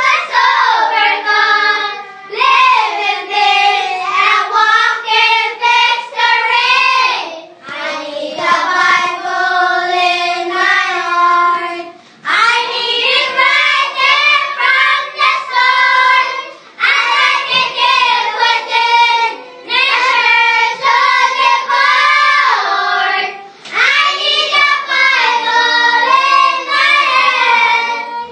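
Children singing a song, in phrases of a few seconds with brief pauses between them.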